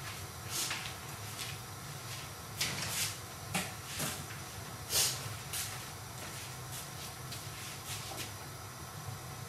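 A kitchen cabinet's glass door being opened and shut, with knocks and clatters of things being moved about inside it, the loudest knock about five seconds in, over a steady low hiss.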